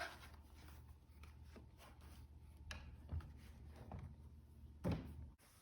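Faint handling noises of a laptop being turned over: a few scattered light clicks and rubs of its plastic case, over a low steady hum.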